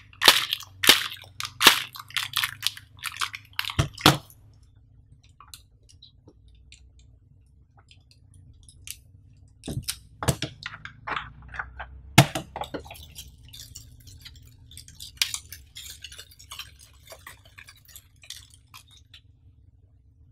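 Hands handling a rubbery car-holder dashboard mat and small hard plastic clip pieces: a run of sharp clicks and taps in the first few seconds, a few more knocks about ten to thirteen seconds in, then light rustling and ticking.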